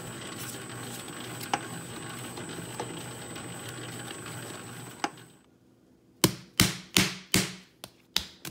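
FAMAG spiral mixer running steadily with a high thin whine over its motor hum as the spiral hook kneads Neapolitan pizza dough, with a few light knocks. The mixer sound cuts off about five seconds in. Then a hand slaps the dough ball six times in quick succession.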